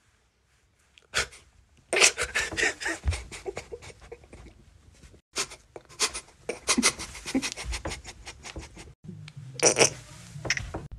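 A man's stifled laughter: rapid, breathy snorts and pants forced out through pursed lips and nose as he tries to hold in a laugh. It starts about a second in, comes in quick runs broken by short pauses, and has a louder burst near the end.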